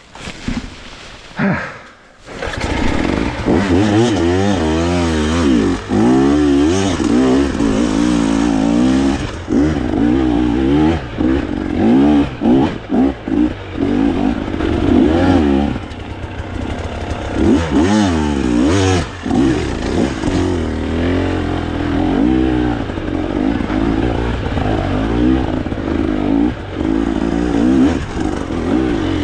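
Two-stroke KTM 300 TBI enduro motorcycle engine revving hard and unevenly, the throttle opened and shut over and over with short dips. It comes in loud about two seconds in.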